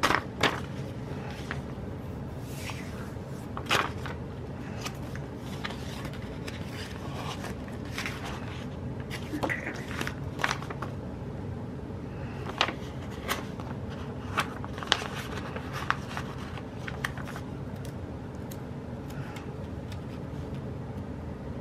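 Scattered light clicks, scrapes and rustles of sticker sheets and planner pages being handled, over a steady low hum.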